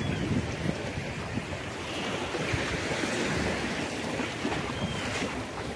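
Sea surf washing in, swelling about two seconds in and easing off again, with wind rumbling on the microphone.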